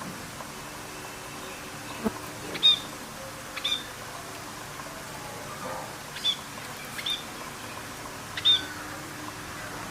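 Parrots giving short, sharp, high-pitched calls, about five scattered over the stretch, with a single click about two seconds in.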